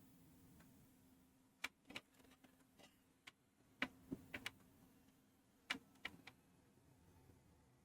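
Near silence broken by a few faint, scattered small clicks and taps, the sound of tools such as multimeter probes being handled on the workbench.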